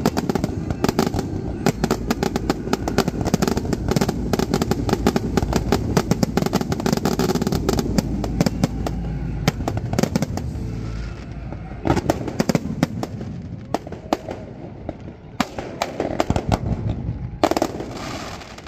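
Aerial fireworks display: a dense barrage of shells bursting in rapid, overlapping bangs and crackles, thinning after about ten seconds to scattered single bangs.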